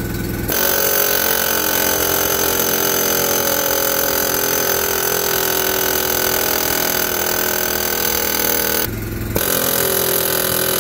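Pneumatic air hammer with a punch bit hammering a seized steel steering spindle down out of a garden tractor's front axle. It runs without a break for about eight seconds, stops briefly near the end, then starts again.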